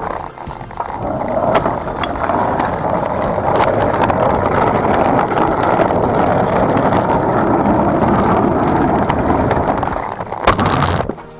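Small hard wheels of a cart rolling over rough asphalt: a steady rolling noise that starts about a second in and stops near the end.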